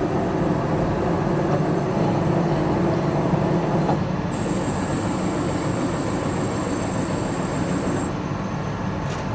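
Steady rumbling hum of running machinery, with a thin high whine that starts about four seconds in and stops about four seconds later.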